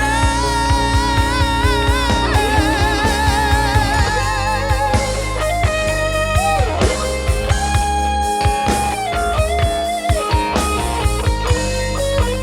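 Music: a band with drums and bass, a long held note with vibrato over the first few seconds, then a lead line with bends and slides, with guitar prominent.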